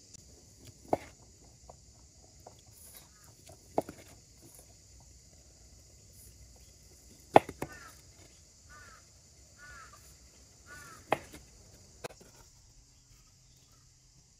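Large kitchen knife slicing cooked beef and knocking on a wooden cutting board, a sharp knock every few seconds. Around the middle a bird calls in four or five short chirps, over a steady high insect drone.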